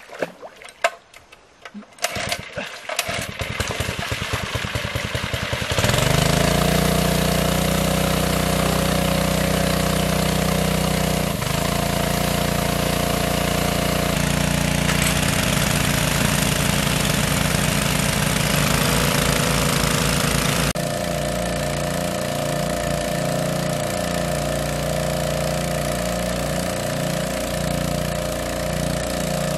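Small petrol-engine water pump starting up: it pulses into life a couple of seconds in and comes up to a loud, steady high-speed run by about six seconds. It drives a big jet of water out of the outlet hose, adding a hiss of spray over the engine.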